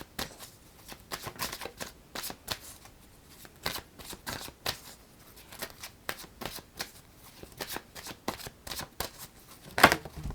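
A deck of Angel Answers oracle cards being shuffled by hand: an irregular run of quick card flicks and slaps, with one louder slap shortly before the end.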